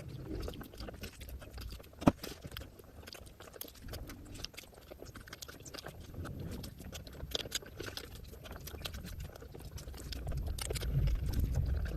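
Close-miked chewing of a mouthful of rice and egg curry, with a steady stream of small wet mouth clicks. A single sharp click comes about two seconds in, and the low chewing sounds grow louder near the end.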